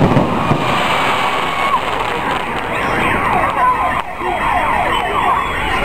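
Fireworks display: a shell bursts at the start over a steady din, with many overlapping whistling tones sliding up and down in pitch.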